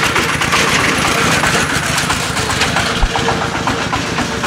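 An engine idling steadily, with plastic bags crinkling and small clicks as duck eggs are bagged close by.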